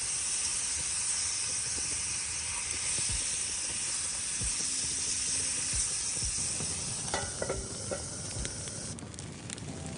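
Tandoori chicken sizzling in a frying pan, stuck to the pan and starting to scorch. The steady sizzle dies down about nine seconds in, leaving scattered crackling ticks.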